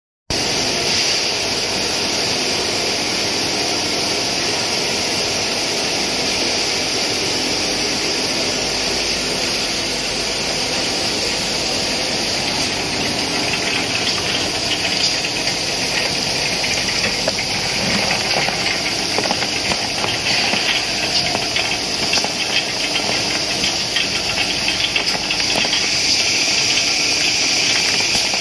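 SSKP cashew peeling machine running: a loud, steady hiss of compressed air over the machine's hum. Faint light clicks of nuts dropping join in during the second half.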